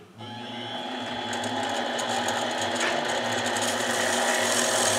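Harbor Freight mini lathe switched on, its motor whining steadily and getting louder as it spins a rotor in the chuck while abrasive cloth is held to it for polishing.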